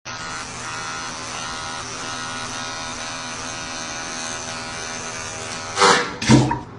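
A steady electric buzz that runs for almost six seconds, then two short, loud sounds close together near the end.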